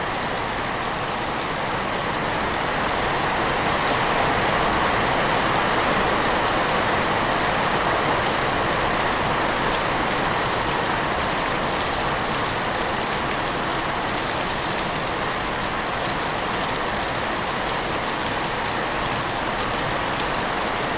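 Heavy rain falling in a steady, dense hiss, swelling a little a few seconds in.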